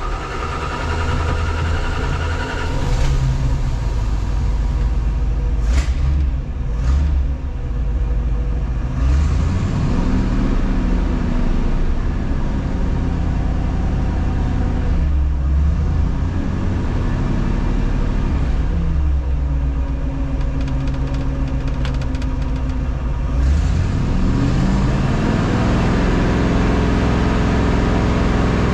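Tucker Sno-Cat's engine running just after starting, its speed rising and falling several times and held up for a few seconds at a stretch as the newly fitted hand throttle is worked. Two sharp clicks sound about six and seven seconds in.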